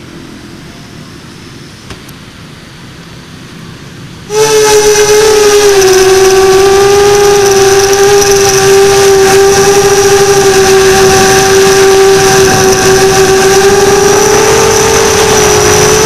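Steady hiss, then about four seconds in the motors and propellers of an FPV quadcopter cut in loud and whine steadily at a nearly constant pitch while it flies.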